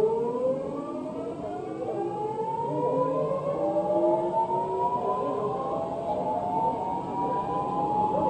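Busan Metro Line 2 subway train's traction motors whining as the train accelerates, several tones gliding slowly upward together over the running noise of the car.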